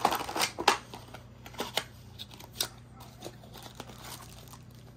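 Clear plastic blister packaging crinkling and a small cardboard box being handled. A quick run of crackles comes in the first second, then sparser clicks and rustles.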